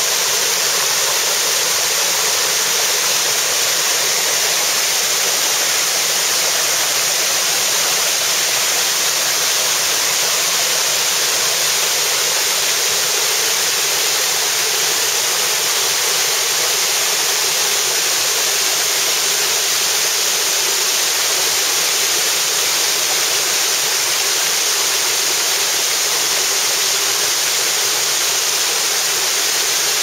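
Waterfall cascading over rocks close by: a loud, steady rush of falling water.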